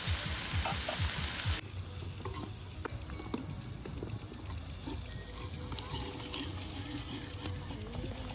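Food sizzling in a cooking pot as it is stirred, with scattered clicks and scrapes of the spoon against the pot. The level drops abruptly about one and a half seconds in, to a quieter sizzle with the clicks more distinct.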